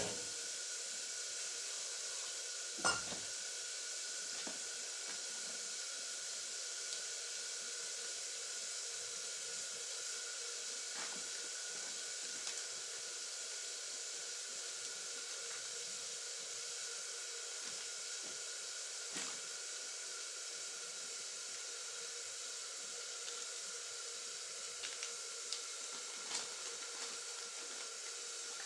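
Steady hiss of food cooking on a lit gas stove, with a few light knocks of utensils, the clearest about three seconds in.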